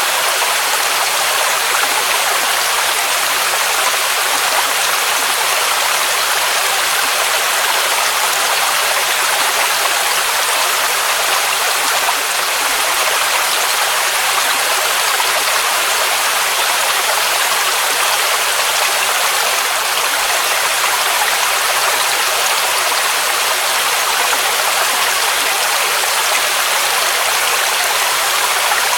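Waterfall: a steady, unbroken rush of falling water, its sound mostly high and hissing with little low rumble.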